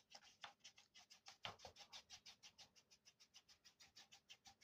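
Paintbrush working oil paint onto a canvas: a faint, fast, even scratching of short brush strokes, about six a second.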